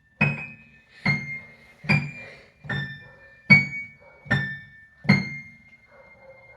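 Piano played slowly one note at a time: seven high single notes, evenly spaced a little under a second apart, each struck with a soft low thud of the key action. The last note is held and rings on, fading.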